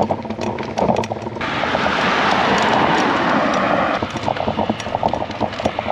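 20-inch folding minivelo rattling and clicking over rough, broken pavement. A loud rushing noise swells in about a second and a half in and fades about four seconds in.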